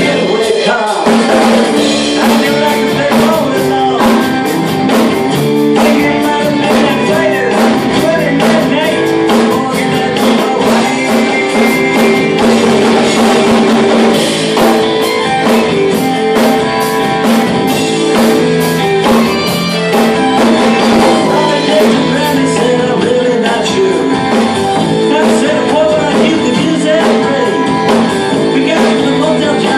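A rock song with singing and guitar, with a Mapex acoustic drum kit played along to it: a steady beat of drum and cymbal hits.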